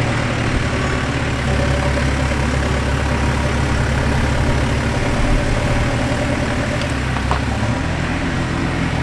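Backhoe engine running steadily at a low, even pitch, its note shifting slightly a couple of times.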